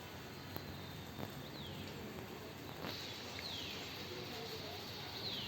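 A bird repeating a short whistled call that slides downward in pitch, about every two seconds, over a steady hiss of rain. A high, steady whine joins about halfway through.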